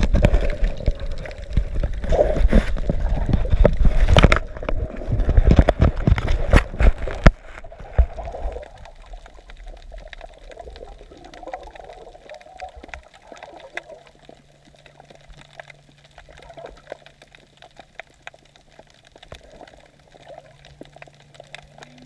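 Water splashing and gurgling close to an underwater action camera near the surface, loud and choppy for about the first seven seconds. It then gives way to quieter muffled underwater ambience with faint scattered crackling clicks. A low steady hum comes in a little past halfway.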